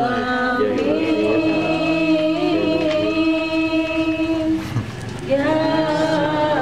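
A single voice reciting the Quran in the melodic tilawah style, holding long, slightly wavering notes, with a short breath break about five seconds in.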